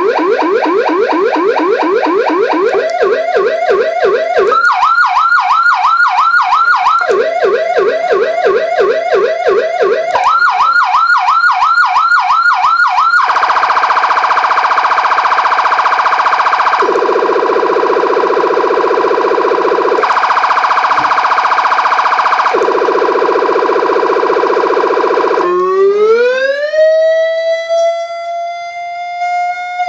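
Federal Sign AS9000B 200-watt electronic siren running through several of its sound modes. First comes a fast yelp of about four to five rising sweeps a second, jumping between a low and a high pitch every few seconds. About thirteen seconds in it changes to a slow two-tone hi-lo, switching roughly every three seconds. Near the end it becomes a wail that rises, holds, and begins to fall.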